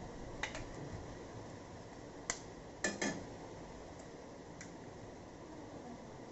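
A few sharp taps and clicks, the loudest a quick pair about three seconds in: an egg being knocked against the rim of a steel kadai to crack it over noodles.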